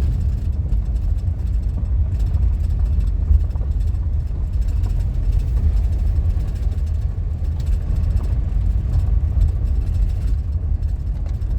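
Steady low rumble of a minivan's engine and tyres heard from inside the vehicle while driving.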